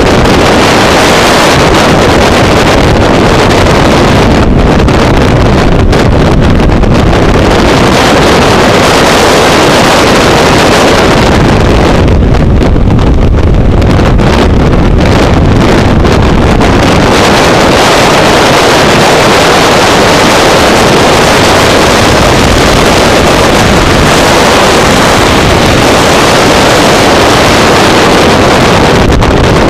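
Freefall wind buffeting a skydiver's camera microphone: a loud, steady rush of noise. The highest hiss thins for a few seconds twice, about four seconds in and about twelve seconds in.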